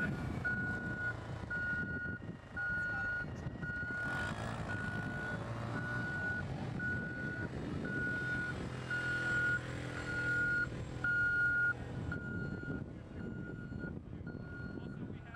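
Vehicle warning beeper sounding a steady train of short high beeps, about two a second, like a reversing alarm, over the low hum of the vehicle's engine running.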